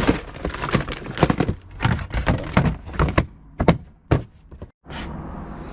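Hardware and odds and ends being handled and rummaged in a box, a run of knocks, clunks and clicks that stops about four seconds in.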